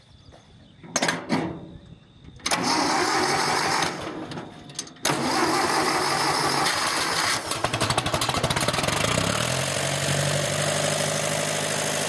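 Engine of a 1968 John Deere 1010 tractor being cranked: two short knocks about a second in, cranking that stops briefly, then it catches about five seconds in and runs, settling to a steady idle near the end.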